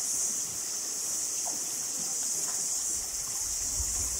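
A steady, high-pitched chorus of insects droning without a break, with a faint low rumble coming in near the end.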